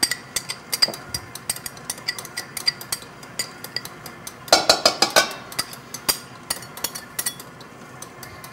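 A metal utensil clinking and scraping against a stainless steel mixing bowl of egg yolks and sugar: a run of light clicks, with a quick cluster of louder clinks about halfway through.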